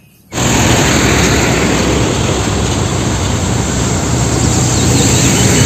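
A convoy of heavy Tata diesel dump trucks on the road: a steady low engine drone under loud road noise, starting abruptly about a third of a second in.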